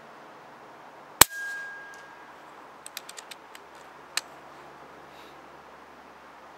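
A 6.35 mm PCP air rifle, a Yeger Korotysh, fires one shot about a second in: a sharp crack with a steady high tone ringing on for about a second after it. About two seconds later comes a run of quick light clicks and then one sharper click, as the action is worked for the next pellet.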